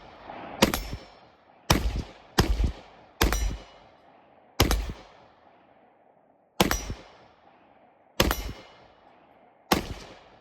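Eight gunshots from an AR-style rifle, fired one at a time at uneven intervals from about half a second to two seconds apart. Each shot has a short ringing tail.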